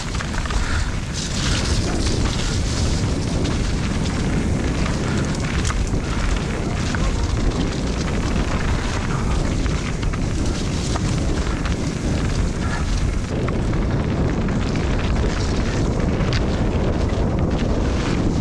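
Wind buffeting the camera microphone and tyre and trail noise from a mountain bike riding downhill on wet, muddy trail: a steady, rough rush with many small knocks and rattles through it.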